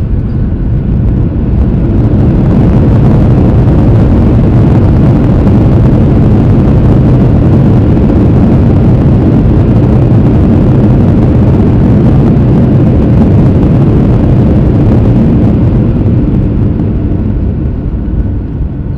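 Loud rumble inside an airliner cabin as the jet lands and slows on the runway. It swells about a second in, holds steady, and eases off near the end.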